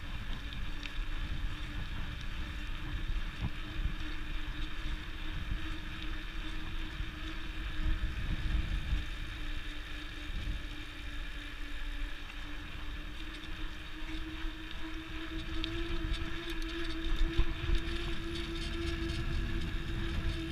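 Bicycle riding on a paved path, with wind buffeting the microphone and a steady droning hum that grows louder and rises slightly in pitch over the last few seconds.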